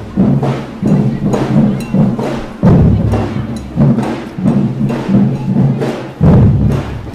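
A group of drums beating a steady rhythm of about two strikes a second, with a heavier, deeper bass-drum hit about every three and a half seconds.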